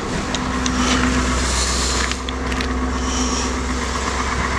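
Cadillac's engine idling steadily as it warms up from a cold start, with a jacket rustling against the microphone and a few small clicks.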